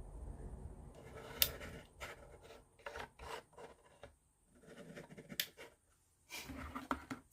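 Plywood kit parts rubbing and knocking together as they are handled, with irregular scrapes and a scatter of sharp wooden clicks.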